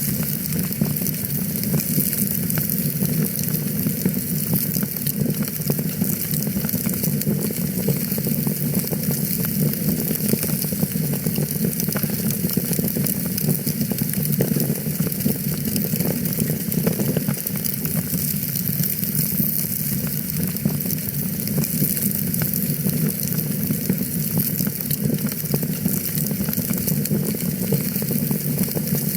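Wood fire crackling in a fireplace: a steady mass of small pops and crackles over a low rumble of the flames.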